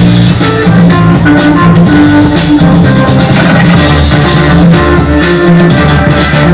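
Loud dance music with a steady drum beat, played for a breakdancer.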